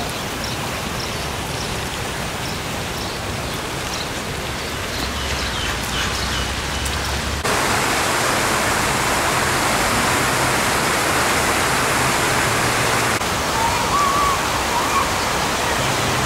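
Steady, even outdoor rushing noise with no speech. It gets louder at an abrupt change about seven and a half seconds in, and a few faint high chirps come through in the first few seconds.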